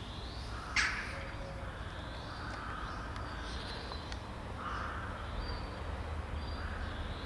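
Crows cawing several times, the loudest caw about a second in and shorter caws following through the rest, over a steady low outdoor rumble.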